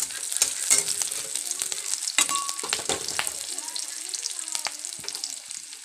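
Sliced onions sizzling in hot mustard oil in a kadai, with a steel spatula clicking and scraping against the pan now and then as they are stirred.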